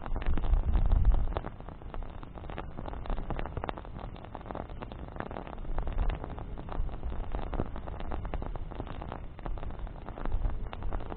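Bonfire burning, with many irregular sharp crackles and pops. Low wind rumble on the microphone, strongest in the first second and again near the end.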